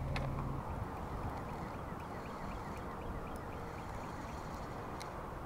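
Steady wind noise on the microphone, with a low hum that stops about half a second in and a few faint clicks.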